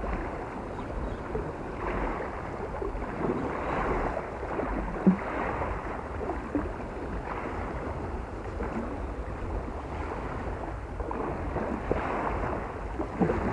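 Small waves lapping along the shore with wind buffeting the microphone, in soft swells every second or two. One short knock about five seconds in.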